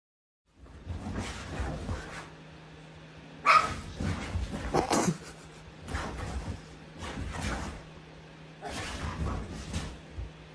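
A dog barking and whimpering in irregular bursts, loudest about three and a half and five seconds in, over a faint steady low hum.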